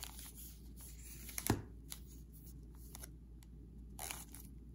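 Sealed foil trading-card packs rustling and crinkling as they are shuffled through in the hand, with a few short crackles and one louder crackle about a second and a half in.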